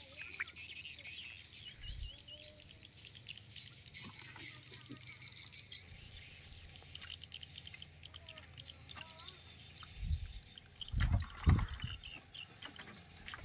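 Small birds chirping and calling over a soft outdoor background, with a few low thumps in the last few seconds.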